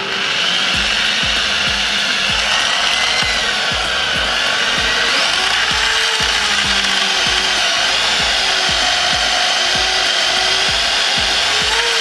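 Corded electric drill boring through an aluminium plate, a steady whine that wavers slightly in pitch as the bit cuts.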